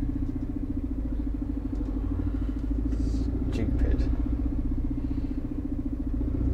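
Iveco Eurocargo lorry's diesel engine running steadily, heard from inside the cab as a low, even drone.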